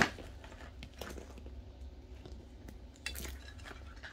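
Hands handling small plastic craft items and packaging: a sharp click at the very start, faint light taps, and a brief rustle of plastic about three seconds in.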